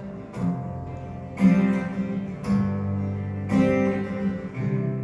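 Acoustic guitar strumming chords in an instrumental passage of a slow ballad, a fresh chord struck about once a second and left to ring.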